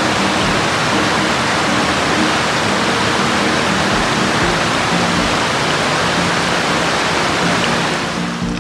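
Shallow stream rushing over smooth rock slabs into a pool: a steady, even rush of water that drops away near the end. Soft background music plays underneath.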